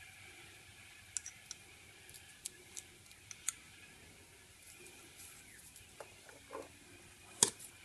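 Faint rustle and scattered small clicks of PTFE thread tape being pulled off its roll and wound onto the brass threaded fitting of a pressure gauge, with one sharper click near the end.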